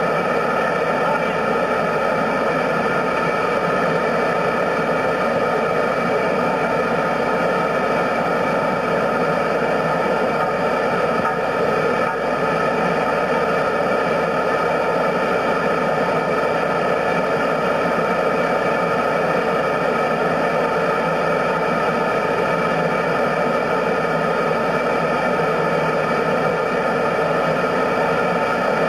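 Gas ring burner ("ring of fire") heating a steam locomotive's driving-wheel tire to expand it for removal: a loud, unbroken rushing noise with several steady tones in it.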